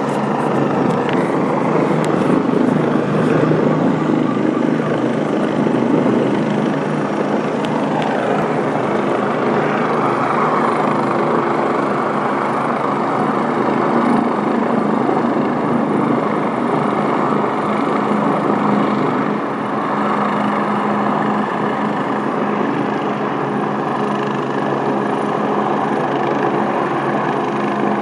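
Police helicopter hovering low overhead: loud, steady rotor and engine noise that goes on without a break.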